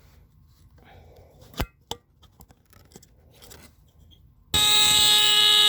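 Faint handling noise and a sharp click, then about 4.5 s in a vintage Tanita No. 2 battery-powered fire (heat) alarm's horn starts abruptly, sounding a loud, steady, buzzy tone rich in overtones. It is a test sounding that shows the alarm works, with the same lower pitch as a Star alarm.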